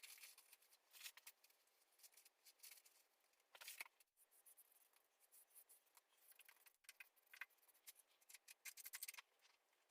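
Near silence, with faint, scattered small clicks and scrapes.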